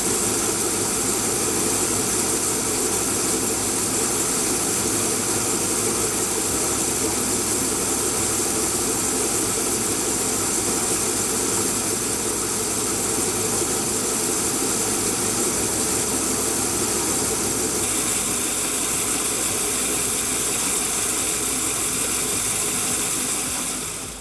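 J.A. Fay & Egan Lightning 950 bandsaw running steadily under power: a constant machine hum with a hiss over it, cutting off abruptly at the very end.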